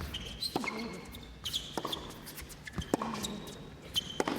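Tennis rally on an indoor hard court: racket strikes on the ball about once a second, with sneaker squeaks and short player grunts between the hits.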